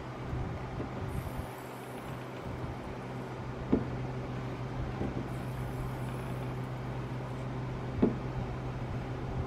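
Gas hood strut being pumped with its rod end pressed against wooden deck boards, priming it before installation; a few short knocks several seconds apart as it is pushed down, over a steady low hum.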